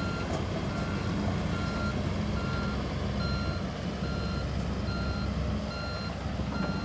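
Steady running of the excavator's Mitsubishi D04EG four-cylinder diesel, with a backup alarm beeping about once every second over it.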